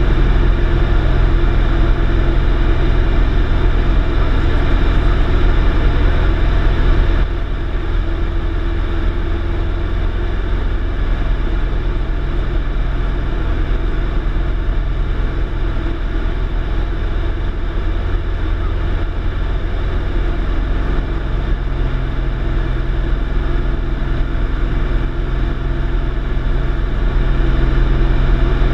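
A light single-engine propeller aircraft's piston engine and propeller droning steadily, heard inside the cabin in flight. The drone drops a little in level and pitch about a quarter of the way in and comes back up near the end.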